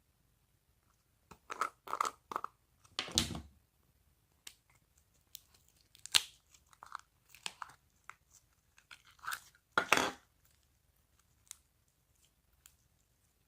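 Slime being poked, squeezed and stretched by hand, giving short scattered crackles, pops and squelches with quiet gaps between, louder about a third of the way in and again near the end.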